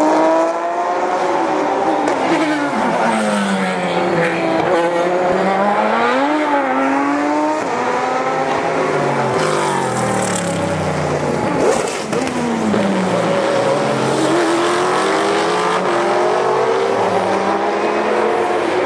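Endurance race cars braking and downshifting for a slow corner, then accelerating away, one car after another, engine notes sweeping down and climbing again. Sharp exhaust backfire pops come through in the middle, with the loudest crack about two-thirds through.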